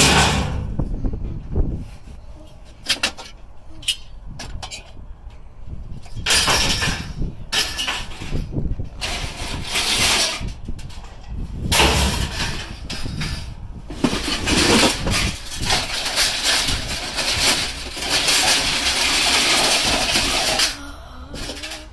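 Scrap being handled: irregular knocks, clinks and rustling, with a longer stretch of steady rustling hiss that stops suddenly near the end.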